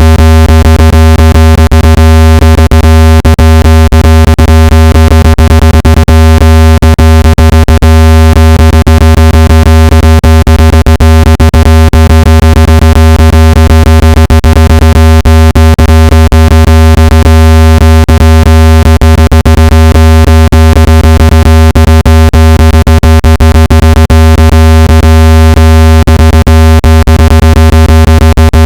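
Speaker water-ejection tone: a loud, steady, synthesized low-pitched buzz with many overtones and frequent crackling clicks, meant to be played at full volume so the vibration drives water out of a phone speaker.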